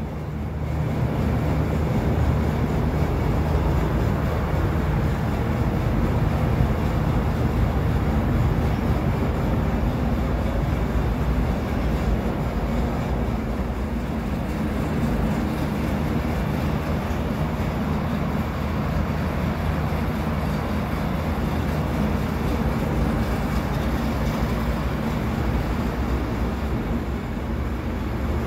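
Steady low mechanical rumbling drone, unchanging in level and pitch.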